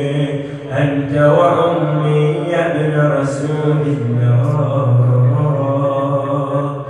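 A man chanting in a slow devotional Arabic recitation style, holding long melodic notes that glide up and down, settling lower about four seconds in.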